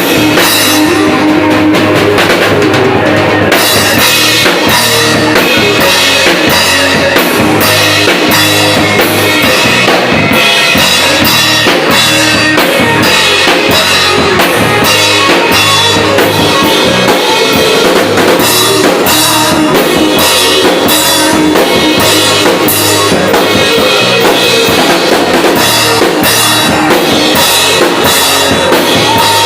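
Rock band playing loudly: a drum kit beating a steady rhythm with kick drum and cymbals, under guitar.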